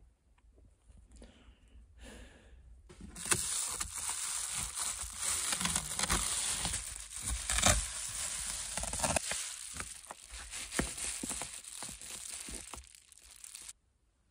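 Loud crinkling and rustling with many small crackles, close to the microphone, starting about three seconds in and cutting off suddenly near the end.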